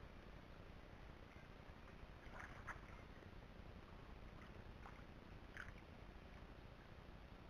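Near silence: faint, steady outdoor background by the water, with a few soft, brief sounds about two and a half and five and a half seconds in.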